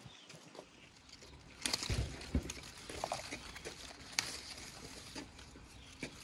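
Leaves and twigs of a shrub rustling and snapping as a hand pushes in and picks leaves, with a louder patch of rustling and knocks about two seconds in and a sharp snap a couple of seconds later.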